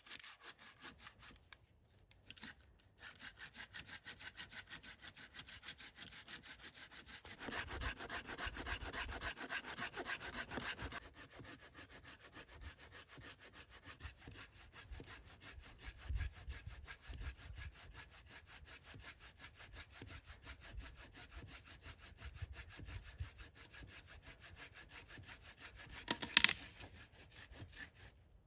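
A hand saw cutting wood in quick, even back-and-forth strokes. The strokes pause briefly about two seconds in and are louder for a few seconds near the middle. A sharp knock comes near the end.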